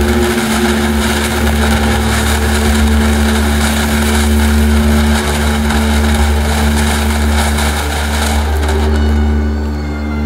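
TNT Fireworks Sunshine ground fountain burning, spraying sparks with a loud, steady hiss that dies out about nine seconds in as the fountain burns out.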